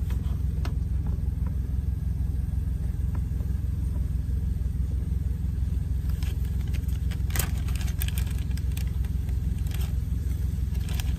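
A steady low hum that the driver puts down to his power inverter running to feed the electric skillet, with a few sharp clicks and plastic-bag rustles as raw stew meat is dropped into the pan.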